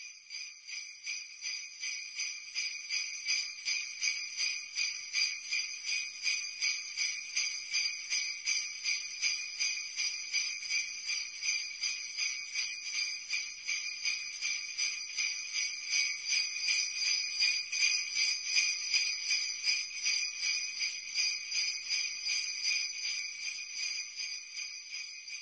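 Sleigh bells shaken in a steady rhythm, about three shakes a second, with a bright, high jingling.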